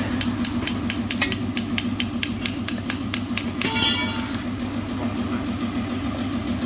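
A steady low machine hum with a quick run of light clicks in the first few seconds. About four seconds in there is a short metallic clink as a stainless steel exhaust downpipe is lifted off the board.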